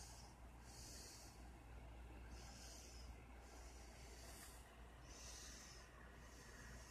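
Faint nasal breathing close to a phone microphone, soft puffs of air coming in and out every second or so, over a steady low hum.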